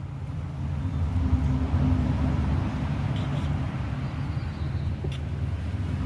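A motor vehicle's engine running with a low, steady hum, growing louder over the first second and a half and then holding.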